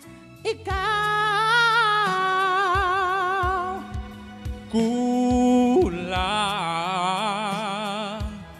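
A solo voice singing a slow ballad over a backing track, holding two long notes with wide vibrato, the second starting about five seconds in.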